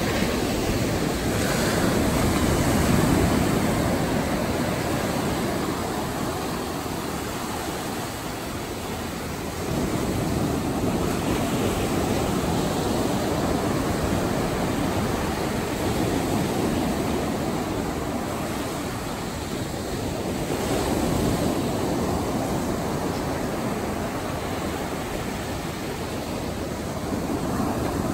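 Ocean surf breaking close by and washing up the sand: a continuous rushing that swells and eases as each wave comes in, one wave arriving sharply about ten seconds in.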